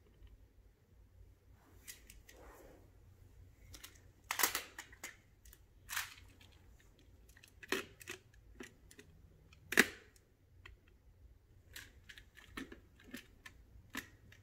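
Plastic Magna-Tiles magnetic tiles clicking and clacking as they are handled and snapped onto a tile tower: a series of sharp, irregular clicks, the loudest about two-thirds of the way through.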